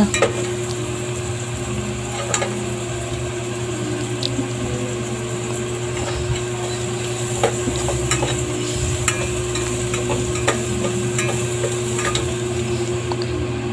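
Chopped ginger and onion sizzling in hot oil in an aluminium pot while a metal spoon stirs and scrapes them, with scattered clicks of the spoon against the pot. A steady low hum runs underneath.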